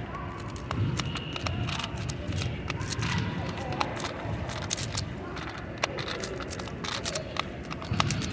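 Rapid, irregular clicking of a 3x3 Rubik's cube's plastic layers being turned quickly during a speed solve.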